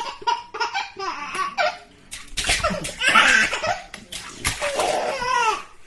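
A baby laughing in several bursts, the biggest about halfway through, while water in the bathtub is splashed.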